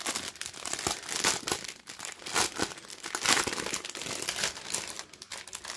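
Clear plastic bags crinkling and rustling in the hands as a packet of small zip bags of round acrylic diamond-painting drills is unpacked, a fast, irregular run of crackles.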